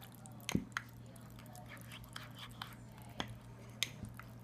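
A spoon stirring brownie batter in a mug, with a few sharp clinks of the spoon against the mug.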